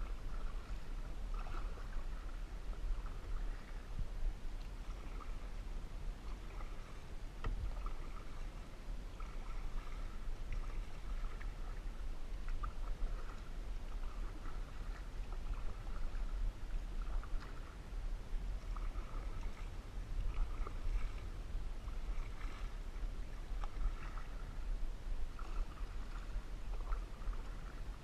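Canoe paddle strokes in calm lake water: a swish and drip of water roughly every second, over a steady low rumble.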